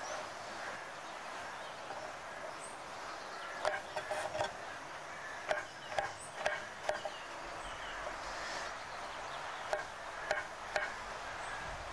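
Kitchen knife slicing button mushrooms on a wooden cutting board: short knocks of the blade meeting the board, in little runs of about two a second with pauses between.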